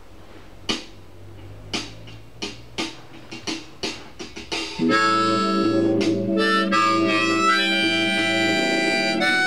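A few sharp clicks and taps, then about five seconds in a harmonica starts playing blues: loud held chords and notes, some of them bent.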